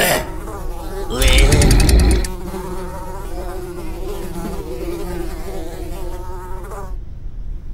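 Two cartoon flies buzzing, a wavering drone that stops shortly before the end. A brief, louder rattling burst comes about a second in.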